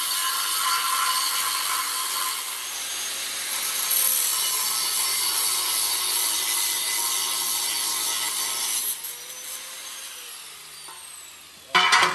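Angle grinder cutting metal with a steady grinding whine, then released about nine seconds in and winding down with a falling tone. A sharp metal clank near the end.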